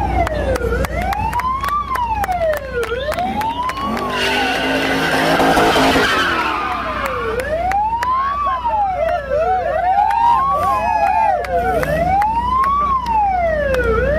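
Police car siren wailing, rising and falling about every two seconds, over the rumble of cars doing burnouts. A louder rush of noise about four to six seconds in.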